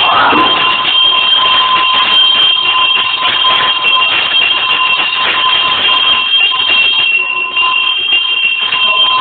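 A bell ringing without pause at a steady pitch.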